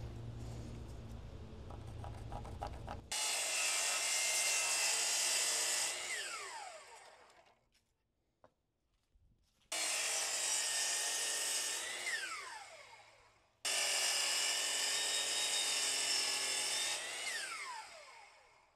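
Power saw crosscutting rough-sawn walnut boards to length, running in three bursts. Each burst ends in a falling whine as the blade spins down.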